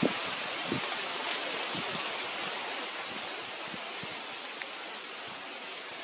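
Light drizzle: a steady, even hiss with a few soft taps scattered through it.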